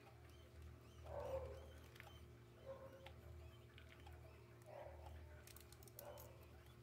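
Near silence: a faint steady hum with a few soft, brief noises.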